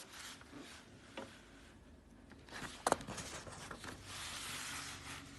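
Faint handling noise over quiet room tone: a soft click about a second in, then a few clicks and a soft rustle around three seconds in.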